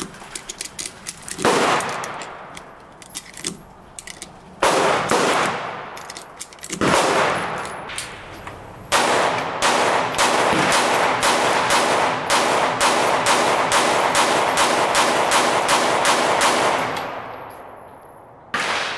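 SIG P365 X-Macro pistol firing: single shots a few seconds apart, then a rapid string of shots at about three a second for some eight seconds, and one last shot near the end. Light clicks of rounds being handled come just before the first shot.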